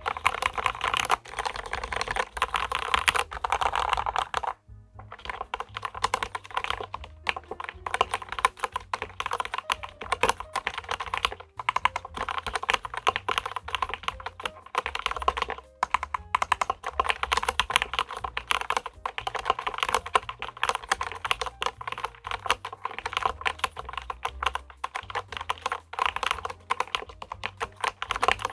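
Fast, continuous typing on a LEOPOLD FC660MBT mechanical keyboard: a dense run of keystroke clacks, with a short pause about four and a half seconds in.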